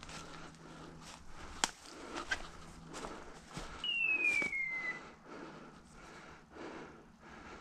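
Footsteps crunching through dry fallen leaves, with a sharp snap about a second and a half in. A single falling whistle, about a second long, sounds near the middle and is the loudest sound.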